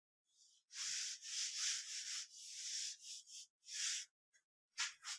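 Felt whiteboard eraser wiping a whiteboard in a run of quick back-and-forth strokes, then two brief strokes near the end.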